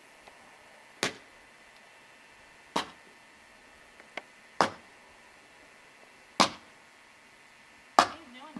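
Five sharp blows, evenly spaced at about one every second and three-quarters, each with a short ring, over a faint steady background.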